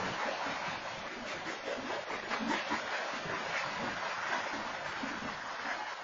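BNSF freight train's covered hopper cars rolling past a grade crossing: a steady rushing noise of steel wheels on rails, with no horn sounding. Heard through a security camera's microphone.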